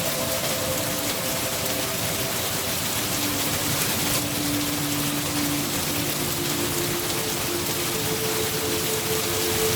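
Steady rain falling, an even hiss of drops with no breaks. Soft sustained low tones hum underneath and shift pitch a few times, like a slow ambient drone.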